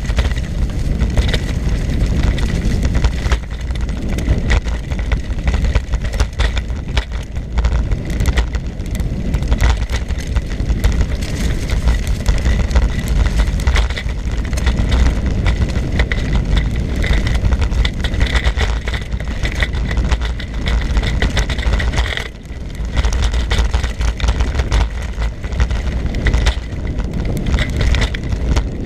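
Wind buffeting the microphone of a camera on a moving bicycle, with tyre and road rumble and rattle from bumps. A faint steady high whine runs underneath. The noise eases briefly about three-quarters of the way through.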